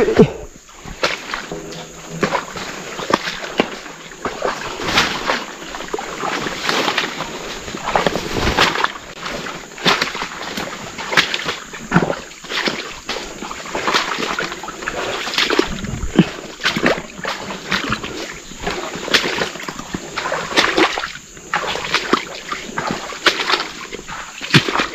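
Boots squelching and splashing through soft swamp mud and shallow water, a run of irregular steps under a heavy load.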